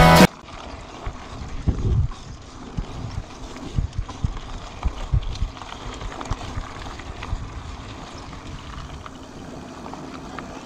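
Music cuts off just after the start, then a mountain bike rides a dirt track with wind noise on the microphone and irregular low thumps and rattles from the bike going over bumps, most of them in the first few seconds.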